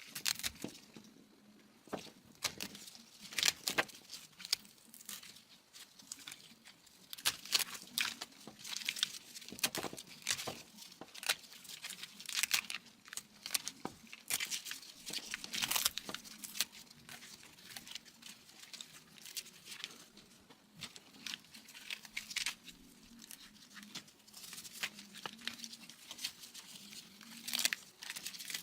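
Wiring harness being handled: plastic wire loom and tape crinkling and rustling, with many irregular short clicks and scrapes. A faint steady hum runs underneath.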